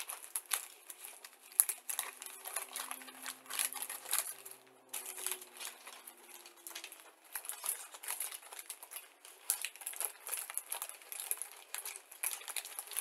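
Clear plastic bag crinkling and grey styrene model-kit sprues clicking against each other as they are handled and pulled from the bag, in many quick irregular crackles.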